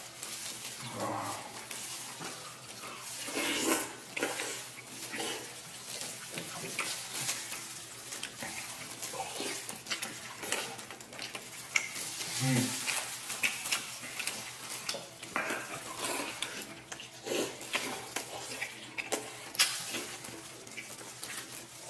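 Close-miked eating: two people gnawing stewed beef off the bone and chewing, a dense run of wet smacks and short clicks, with now and then a brief low hum or grunt.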